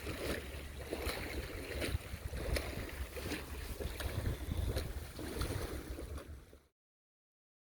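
Wind buffeting the microphone over lapping water, with scattered small clicks; the sound cuts off abruptly near the end.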